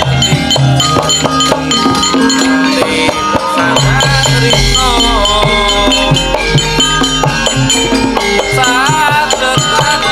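Live Javanese gamelan music: held metallophone notes over steady drum and percussion strokes, with a voice singing ornamented lines about halfway through and again near the end.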